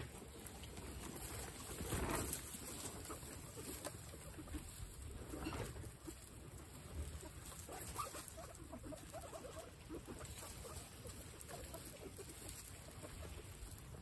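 A group of guinea pigs eating fresh grass: munching and rustling in the grass, with many short soft calls through the second half. Wind rumbles on the microphone throughout, with a loud rustle about two seconds in.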